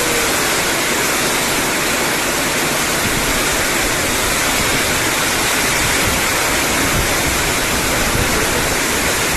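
Heavy rainstorm with strong wind: a loud, steady rushing of downpour and gusts.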